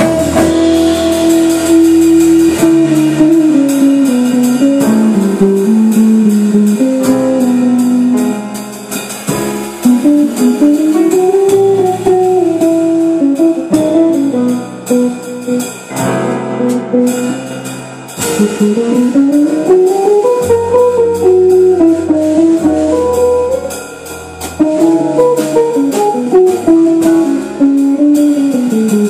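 Small jazz combo playing, an archtop electric guitar carrying a running melodic line in rising and falling phrases over walking upright bass and drums.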